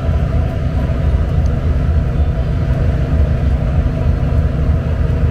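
Steady low rumble of a tourist road train in motion, heard from its open-sided carriage.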